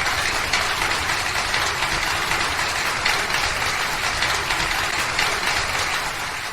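Audience applauding, a dense clatter of many hands clapping at once, fading out near the end.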